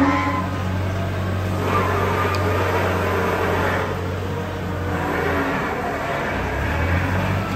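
Compact wheel loader's diesel engine running, a steady low drone that eases off about two-thirds of the way through and picks up again near the end.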